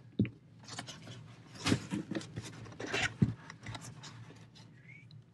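Unboxing handling of a cardboard box and its packaging: scattered scrapes, rustles and light knocks, with a few sharper taps about two and three seconds in.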